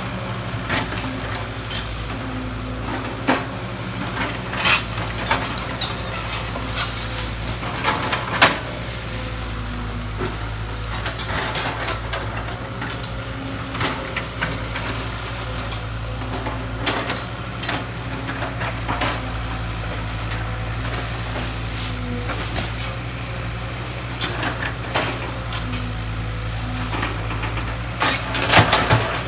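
Kobelco excavator's diesel engine running steadily, with scattered knocks and clanks throughout and a cluster of sharper knocks near the end.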